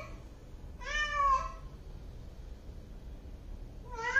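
Domestic cat meowing repeatedly: the end of one meow at the start, a full meow about a second in that rises and then falls in pitch, and another beginning near the end. The meows are its calls for attention before it goes to pee or poo.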